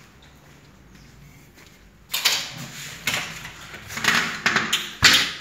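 A door being opened and shut: after a quiet start, a run of loud, irregular scraping and rattling noises begins about two seconds in.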